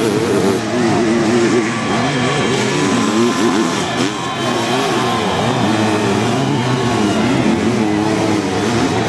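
Sidecar motocross outfits racing on a dirt track, several engines at once revving up and down over the bumps and through the corners.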